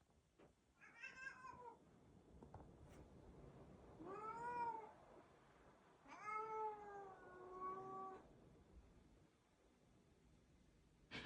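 Siamese cat meowing faintly three times: a short meow about a second in, another in the middle, then a longer drawn-out meow that dips and then holds its pitch.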